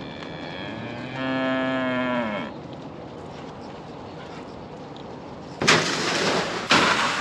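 A cow mooing: one long moo about a second in that drops in pitch as it ends, after a fainter call, from cattle coming up to the barn for grain. Near the end come two loud rushing bursts of noise, about a second each.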